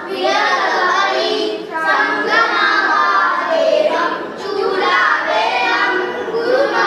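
A group of children singing a devotional prayer together in unison.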